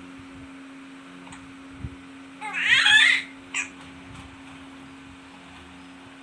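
An infant's high-pitched squeal with wavering pitch, about two and a half seconds in and lasting about a second, followed by a brief second sound just after. A steady low hum runs underneath.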